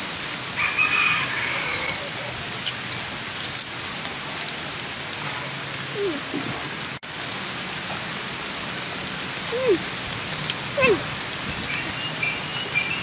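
Steady hiss of rain falling on the shelter and the ground around it. A few short calls break through it about a second in, near the middle and near the end.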